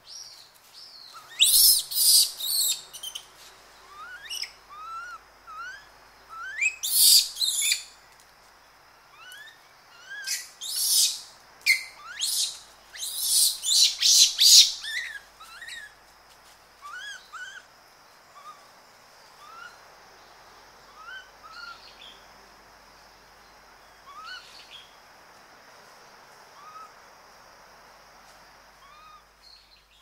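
Japanese macaques screaming close up in loud, harsh bursts: around 2 seconds in, again around 7 seconds, then a longer run from about 10 to 15 seconds. Between the screams and after them, background birds keep giving short rising chirps about once a second.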